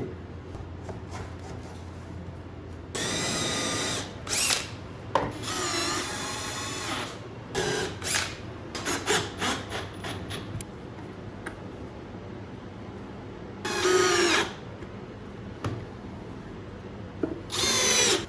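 Power drill running in several short bursts, each lasting up to about two seconds, with its whine wavering in pitch under load as it works pine boards.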